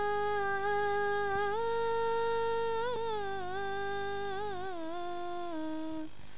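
A single high voice holds one long chanted note in Arabic melodic style, the drawn-out last vowel of a greeting. It steps up and down slowly with small ornamental turns and stops about a second before the end. A low electrical hum underneath cuts out at about three-quarters of the way through.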